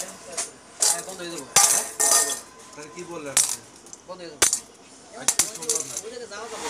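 Small steel diesel fuel injector parts (springs, washers, nozzle pieces) being handled and set down on a steel workbench: a string of sharp metallic clinks about a second apart.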